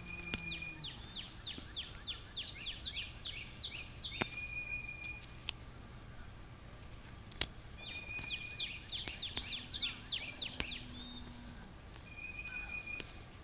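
A songbird singing repeated phrases, each a short steady whistle followed by a quick run of falling notes, heard twice in full with a third beginning near the end. A few faint sharp clicks are scattered through.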